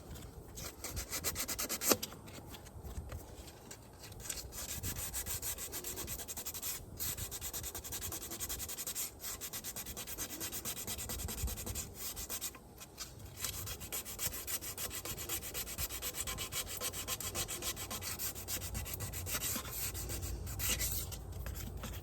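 Sandpaper rubbing back and forth on a wheel rim in rapid, even strokes, sanding down curb rash, with a few brief pauses and a sharp tap about two seconds in.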